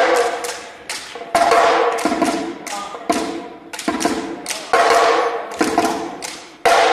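West African hand-drum ensemble playing loud, sharp unison accents roughly once a second, with lighter strokes in between, each hit ringing out in the hall.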